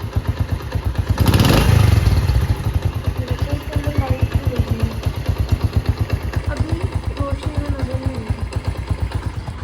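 Honda CD70's 72cc single-cylinder four-stroke engine idling with a steady, even beat while warming up after a cold start. There is a short, louder burst about a second in.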